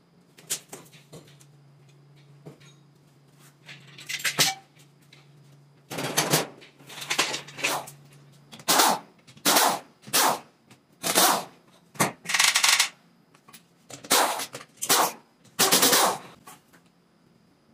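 Pneumatic impact wrench hammering in about ten short bursts, starting about six seconds in, working the nuts and bolts on a Toyota Land Cruiser rear axle's differential. Scattered metal clicks come before the bursts.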